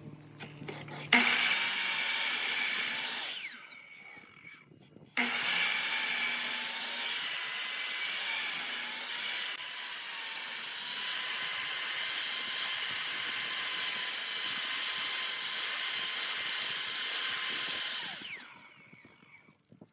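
Electric power tool running on pallet wood: a short run of about two seconds, then after a brief pause a long run of about thirteen seconds, with a steady motor whine over the noise of the cutting.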